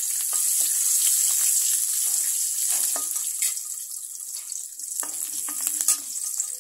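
Garlic cloves sizzling in hot oil in a wok, stirred with a steel spoon that scrapes and clinks against the pan now and then. The sizzle is loudest at first and eases off over the second half.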